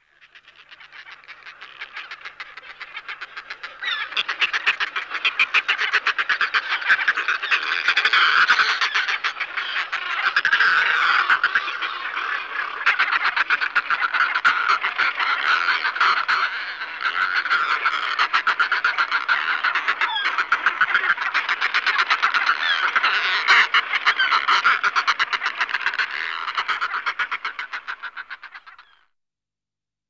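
Northern fulmar cackling calls: a continuous rapid rattling chatter that swells and eases, fading in at the start and out about a second before the end.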